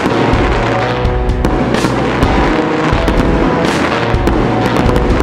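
Fireworks bursting and crackling, with many sharp bangs and crackles, over loud music with a bass line and held notes.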